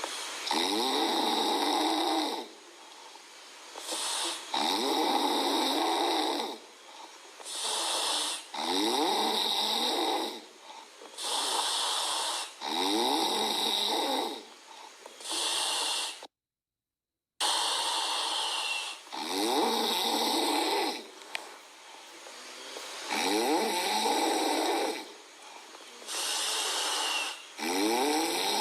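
Chihuahua puppy snoring loudly, a long fluttering snore about every four seconds with quieter breathing in between. The sound cuts out completely for about a second midway.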